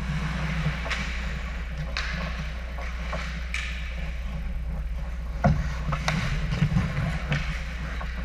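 Ice hockey play heard from the goalie's helmet camera: skate blades scraping and carving on the ice, with a few sharp clacks of sticks and puck, over a steady low hum. Rough, louder rumbling and knocks about five and a half seconds in as play comes to the crease and the goalie moves.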